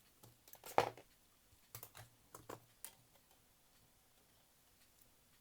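Light taps and small clicks of work on a cassette player's tape mechanism and its pinch-roller bracket. A sharper tap comes about a second in, then a quick run of faint clicks, then quiet.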